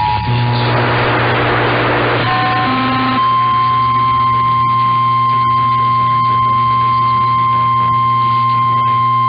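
The two-tone Emergency Alert System attention signal ends just after the start. About two seconds of radio static with a low hum follow. Then a single steady alert tone, the weather radio warning tone, sounds through the rest, over the same low hum.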